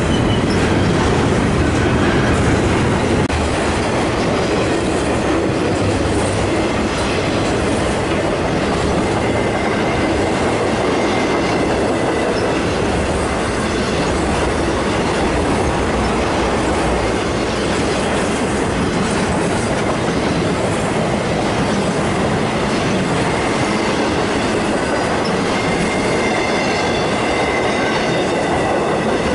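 A train rolling past: steady loud noise of steel wheels on rails, with a faint high-pitched wheel squeal in the second half.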